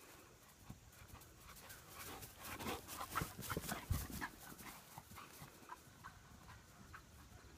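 A dog panting and its paws thudding on grass as it runs close by, loudest in the middle and fading as it runs off.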